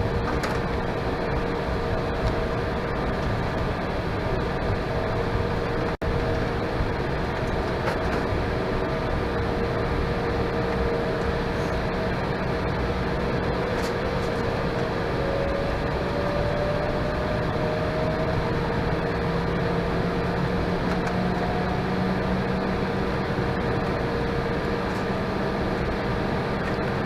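Cabin noise inside an Embraer E175 regional jet taxiing: the steady hum of its GE CF34 turbofans at low thrust and the cabin air, with a few steady engine tones, one of which slowly rises in pitch about halfway through.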